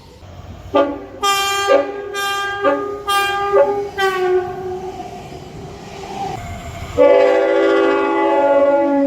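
Locomotive air horn sounding several short blasts, then a long blast whose pitch drops as the train passes (Doppler effect). About seven seconds in, another train horn comes in suddenly with a long blast, its pitch also falling as it goes by.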